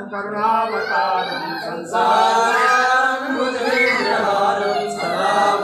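A group of voices singing a devotional chant together, the kind sung during an aarti, with no instruments standing out.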